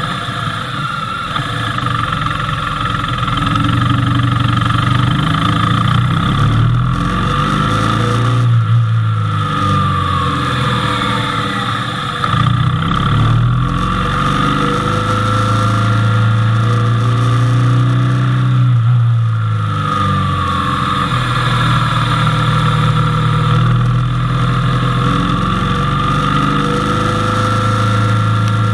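Motorcycle engine running while riding, its pitch dropping off and climbing again several times as the throttle and gears change, with a steady rush of wind and road noise.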